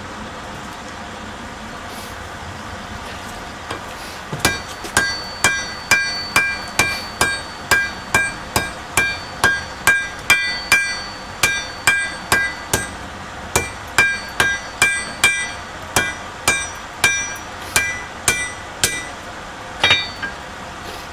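Hand hammer striking red-hot spring steel on an anvil, about two blows a second, each with a metallic ring. He is hammering the joint tight to set a forge weld. The blows start about four seconds in, pause briefly midway, and end with a last pair of blows near the end.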